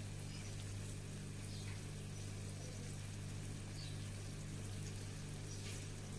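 Pan of pepper-and-tomato sauce with eggs simmering quietly, a faint steady sizzle with a few small pops, over a steady low hum.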